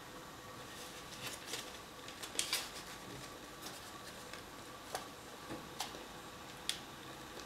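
Folded paper of an origami daffodil crinkling and rustling in a few short crackles as it is handled and pressed onto a drinking straw, the loudest about two and a half seconds in, over a faint steady hum.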